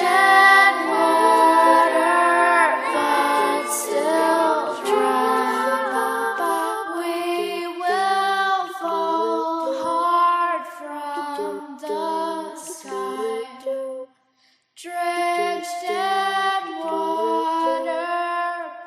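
A cappella female vocals, several overdubbed voices singing layered harmonies with no instruments. They stop for a brief moment about three-quarters of the way through, then resume.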